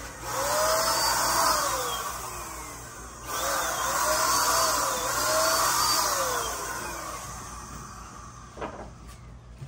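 Handheld electric paint sprayer running in two long bursts, its hiss carrying a motor tone that swoops up and then slides down in pitch. It fades out a couple of seconds before the end, followed by a few small knocks.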